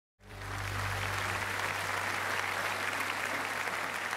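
A large congregation applauding, starting abruptly a moment in, with a low steady hum underneath.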